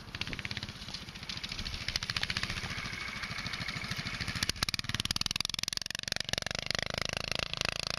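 Predator 420cc single-cylinder engine of an off-road go-kart running under throttle with a fast, even firing beat, growing louder about halfway through as the kart comes close.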